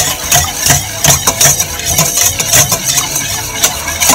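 Wire balloon whisk beating egg in a stainless steel mixing bowl, the wires clattering against the metal about three times a second.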